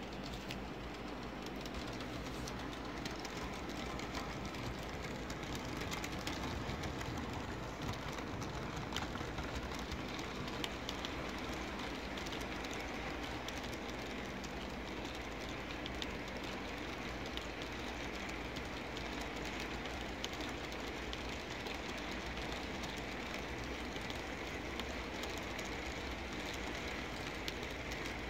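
HO-scale model coal train rolling past: a steady rumble of metal wheels on the track, with a continual patter of small clicks as the hopper cars' wheels cross rail joints and the diamond crossing.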